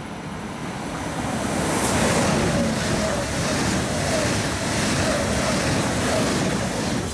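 ICE high-speed train running through a station close by: a steady rush of air and wheel noise that builds over the first two seconds, stays loud, and eases near the end, with wind buffeting the microphone.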